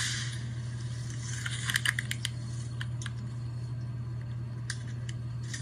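Scattered short clicks and rattles, bunched together about two seconds in, over a steady low hum; a sharp burst of noise just before fades away in the first second.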